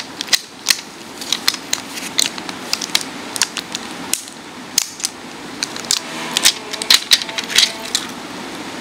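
Plastic wrapping crinkling in many irregular sharp crackles as it is peeled off a new wristwatch by hand.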